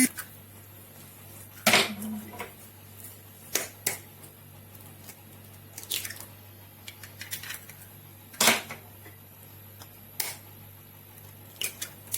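Eggs being cracked on the edge of a bowl one after another: a series of short, sharp knocks a second or two apart.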